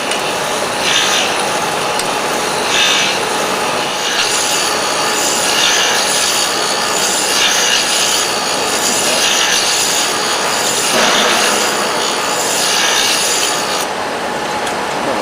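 CNC face-mill sharpening machine grinding the cutter's teeth with the face of its grinding wheel: a steady grinding hiss with a brighter swell every second or two as the wheel passes, easing off near the end.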